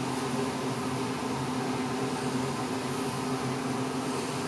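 Steady machine hum in a small room, unchanging throughout, with a few low fixed tones: room tone.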